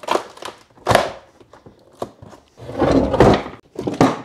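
Hard plastic battery case being handled as its lid is worked loose and lifted off: a sharp knock near the start, another about a second in, a longer scraping, rattling stretch around three seconds in, and a final knock near the end.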